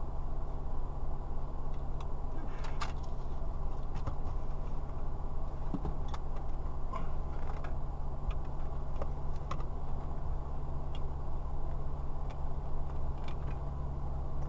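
Car engine idling steadily, heard from inside the stationary car's cabin as a low even hum, with scattered light clicks and ticks.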